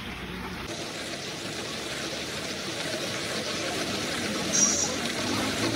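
Steady background noise of a busy street market, a mix of traffic and crowd, with a short high clink about four and a half seconds in.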